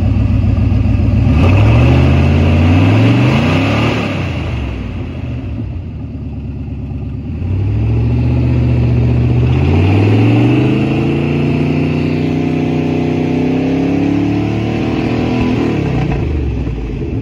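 Pickup truck engine running with its catalytic converter removed, idling and revved twice: a short rev about a second in that falls back within a few seconds, then a longer rev from about seven and a half seconds, held up for several seconds before dropping back to idle near the end.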